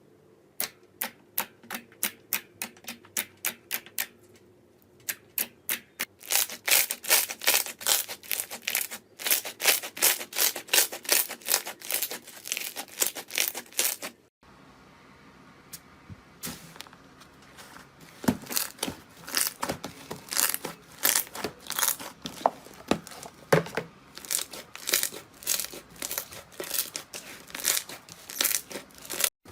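Slime being worked by hand, giving quick runs of sharp pops and crackles. There is a quieter stretch about halfway, then the popping resumes.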